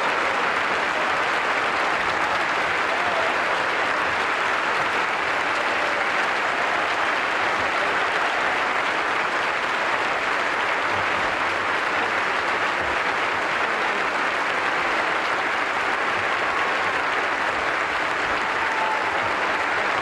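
Large theatre audience applauding steadily in an ovation.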